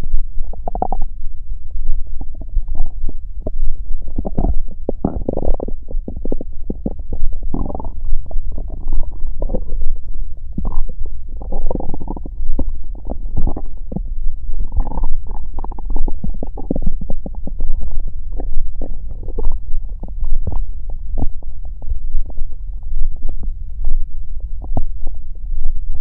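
Human stomach growling: a steady low rumble overlaid with frequent short gurgles and squeaks.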